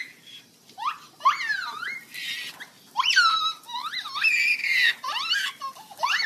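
Baby squealing and shrieking with laughter: a string of short, high-pitched squeals that sweep up and down in quick succession.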